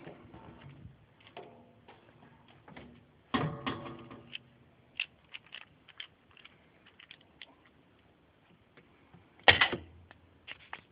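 Plastic agitator parts of a top-load washing machine clicking and knocking as they are handled and dropped into place, with a louder knock about three and a half seconds in and the loudest knock about nine and a half seconds in.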